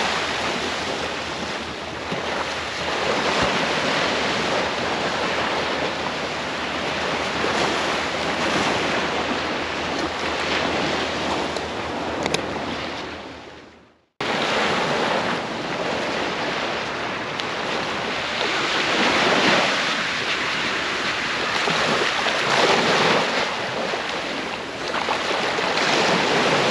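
Gulf beach surf washing in and out in slow swells, with wind rushing on the microphone. About halfway through, the sound fades out to silence and then starts again abruptly.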